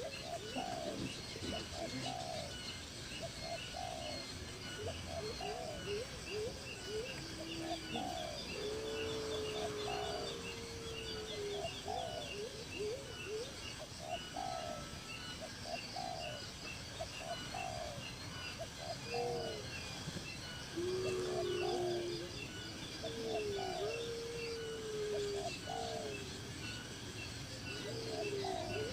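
Birds calling: a series of short low notes about once a second, with some longer drawn-out notes in between and faint high chirping above.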